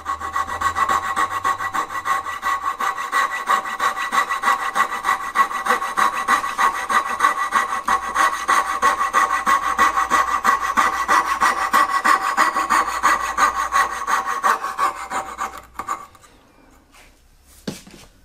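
Fret saw cutting through wood with rapid, even strokes, removing the waste between dovetails. The sawing stops about 16 seconds in, followed by a couple of light knocks.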